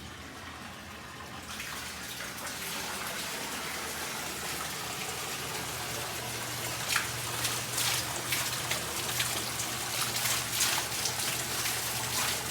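Water pouring from an indoor bathroom waterfall feature, a steady rushing hiss that grows louder about a second and a half in, with sharper splashes and spatters through the second half.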